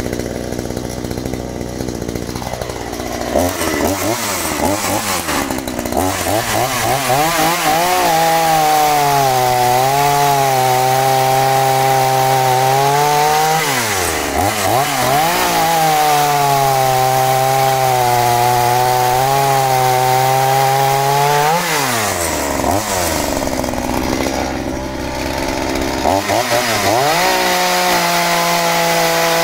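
Scheppach CSP41 41 cc two-stroke chainsaw idling, then revved hard and held at high speed while cutting wood. Its pitch drops sharply and recovers twice, about halfway and two-thirds of the way in, before it revs up again near the end.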